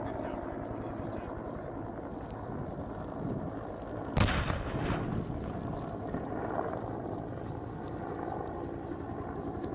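A single distant explosion about four seconds in: a sharp boom that trails off over about a second, over a steady low background rumble.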